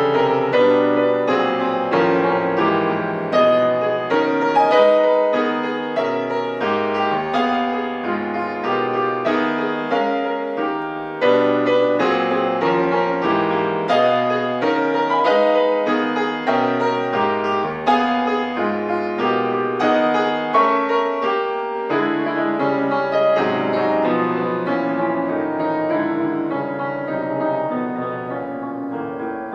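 Concert grand piano played solo, a steady stream of dense chords and moving notes in a classical sonata, getting a little softer near the end.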